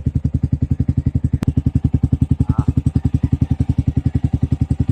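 Motorcycle engine idling steadily through an aftermarket MVR1 exhaust pipe, an even, low pulsing of about a dozen beats a second. A single sharp click about one and a half seconds in.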